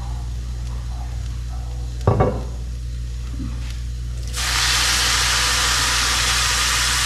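Wine poured into a hot pan of toasted risotto rice, hitting it with a loud, steady sizzle that starts suddenly about four seconds in. A single knock about two seconds in, over a steady low hum.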